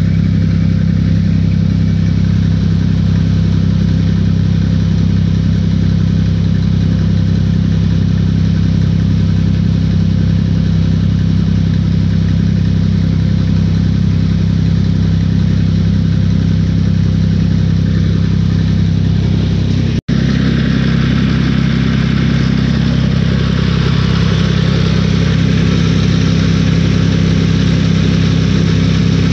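A motor running steadily at a constant low pitch, like an idling engine. It is interrupted by a brief dropout about twenty seconds in and then carries on with more hiss.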